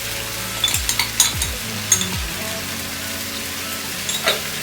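A tomato, capsicum and spice base sizzling in a cooking pot as it is stirred, with a spoon clicking against the pot several times.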